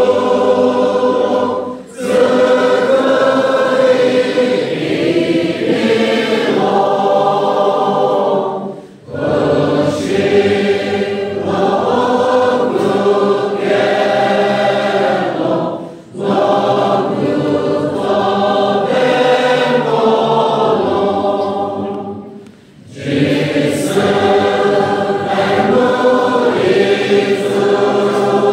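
Church congregation of men and women singing a hymn together, in long phrases with a brief pause for breath about every seven seconds.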